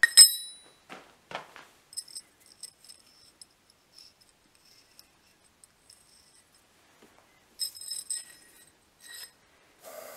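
A bar of 5160 steel set down on the anvil face with a single sharp ringing clank, followed by soft scrapes. Then a run of faint tinkling ticks as a white marker writes on the bar and it rings lightly, with a few louder metal clinks near the end.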